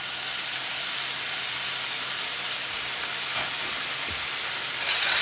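Green beans sizzling steadily in hot bacon fat in a skillet as sweet Thai chili sauce is poured over them. There are a couple of faint knocks a little past the middle, and the sizzle swells louder near the end.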